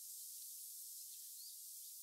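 Faint outdoor ambience: a steady high hiss, with one short bird chirp past the middle.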